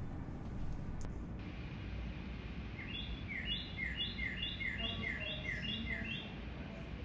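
A run of short, bird-like falling chirps, about two a second for a few seconds in the middle, over a steady low room rumble.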